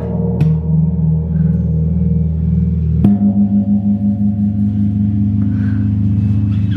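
Deep, loud metallic ringing tones. A fresh strike about three seconds in sets off a new deep tone that rings on with a slow pulsing beat.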